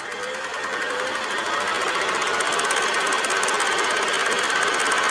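Film projector running: a rapid, steady mechanical clatter of the film moving through the gate over a whirring motor, growing slightly louder.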